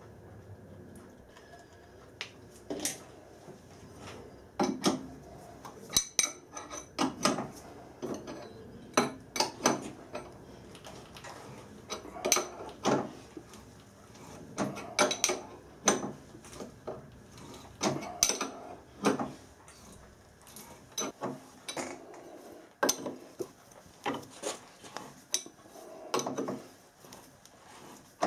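Split die in a hand-turned tailstock die holder cutting a thread on a stainless steel stud in a lathe: irregular metallic clicks, clinks and scrapes as the bar is worked round in short strokes.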